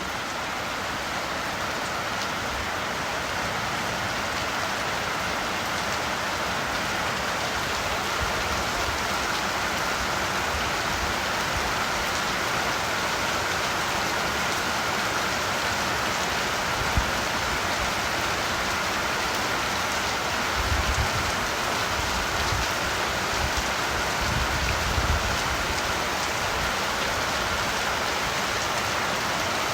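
Steady rain falling on surfaces, an even hiss of many drops, with a few brief low rumbling swells about two-thirds of the way through.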